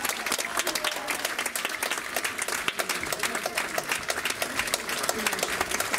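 Theatre audience applauding steadily: a dense, continuous run of hand claps.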